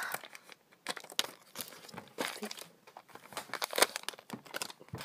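A small cardboard Chocoball candy box being opened by hand: irregular crinkling and crackling of the packaging, with the sharpest crackle a little under four seconds in.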